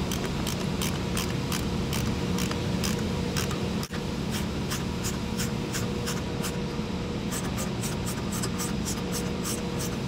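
Ratchet wrench clicking in quick, regular ticks, about three to four a second, as bolts on a centrifugal chiller's marine box are run down. Under it runs the steady hum of the mechanical room.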